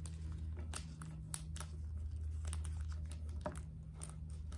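Origami paper being folded and creased by hand on a tabletop: scattered short crinkles and taps.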